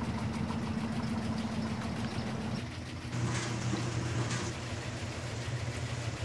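Steady low hum of laundromat machines running. The hum shifts to a lower, stronger tone about three seconds in, with a couple of brief higher rustles after it.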